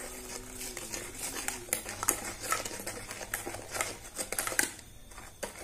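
Silicone spatula stirring a thick flour and chocolate-milk batter in a stainless steel pot, scraping and tapping against the metal in a run of irregular clicks.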